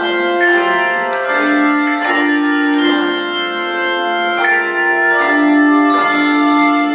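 Handbells rung one after another in a slow melody, a new note about every 0.8 s, each note ringing on and overlapping the next.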